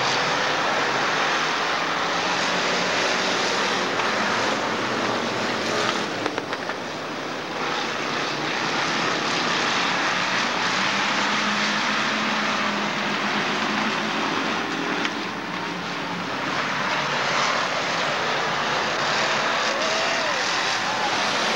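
A pack of street stock cars racing on a dirt oval, many engines running together in a steady roar, with single engines revving up and down toward the end.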